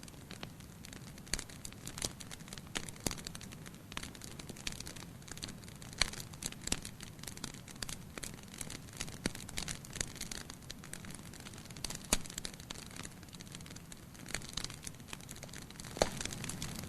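Bonfire burning: wood crackling and popping irregularly over a steady low rumble of flames, with a few louder pops about six, twelve and sixteen seconds in.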